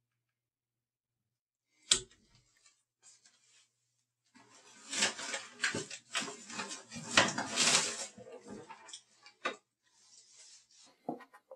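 A single sharp knock about two seconds in, then several seconds of dense rustling and crinkling as hands rummage through a plastic bin liner in a kitchen bin, followed by fainter handling noises near the end.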